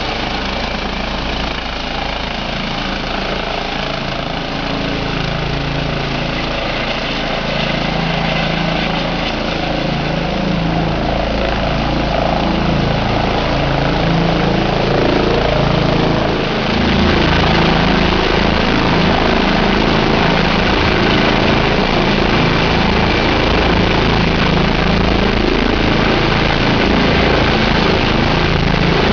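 Rescue helicopter's turbine and rotor running continuously, slowly growing louder. About 16 seconds in there is a brief dip, after which a deeper rumble fills in and holds steady at its loudest.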